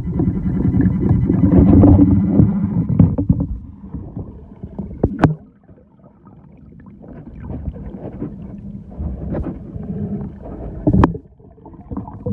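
Water sloshing and gurgling right at the microphone, with a steady low hum during the first few seconds and two sharp clicks, about five and eleven seconds in.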